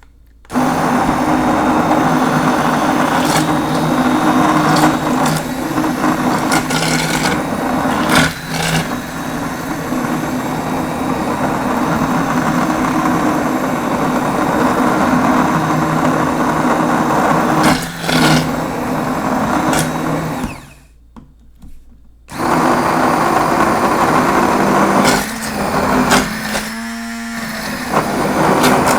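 Braun Multiquick Vario 5 hand blender motor running with a steady whirring hum. It switches on about half a second in and runs for about twenty seconds, then stops for about two seconds, starts again and runs on, dropping briefly in level near the end.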